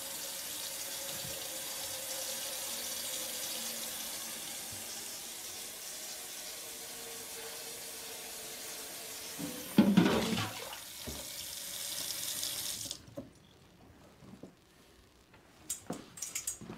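Water running steadily from a tap into a sink, cutting off suddenly about thirteen seconds in. A brief loud knock comes about ten seconds in, and a few faint clicks and knocks follow in the quiet near the end.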